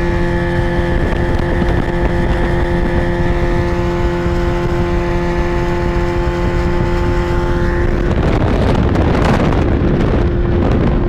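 Outboard motor running at a steady high speed, its pitch holding level. About eight seconds in, a loud rushing noise swells for a couple of seconds, briefly drowning the engine.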